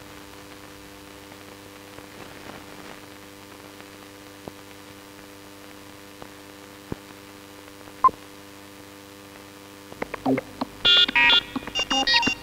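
Faint steady soundtrack hum with a few scattered clicks, then from about ten seconds in a quick run of loud, short electronic beeps and tones that change pitch in steps.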